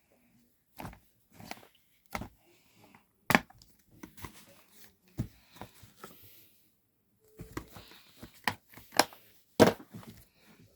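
Irregular clicks and knocks with faint rustling, as of objects being handled close to the microphone; the loudest knocks come about three seconds in and shortly before the end.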